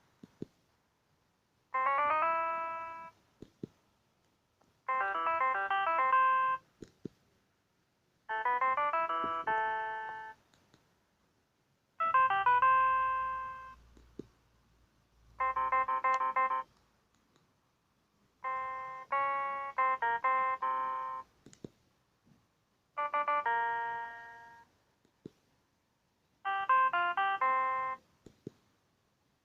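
Siemens C62 mobile phone playing ringtone melodies: a run of short electronic tunes, each phrase about two seconds long, with a pause of about a second and a half between phrases.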